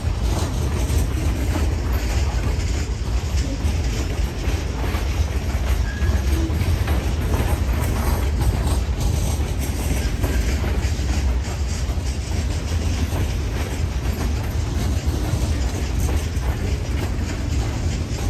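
Freight train's hopper cars rolling past close by: a steady rumble of steel wheels on the rails, with clickety-clack as the wheels cross rail joints.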